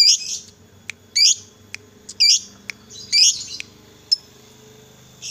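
Fischer's lovebird giving shrill chirping calls: four loud bursts about a second apart, mixed with short sharp chirps, then a lull of about a second and a half near the end.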